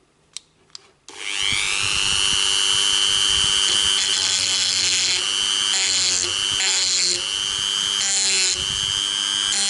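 Dremel-type rotary tool switched on about a second in, its whine rising as it spins up and then holding steady. A small cylindrical bit is pressed against the steel at the mouth of a .45 1911 barrel's chamber in several short spells, each adding a harsher grinding hiss, as the sharp inside edge is chamfered.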